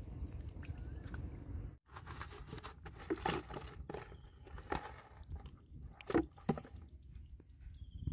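Feet sloshing through shallow muddy water. After a cut, fish splashing and slapping in a plastic basin of water as hands grab them, with scattered knocks and splashes.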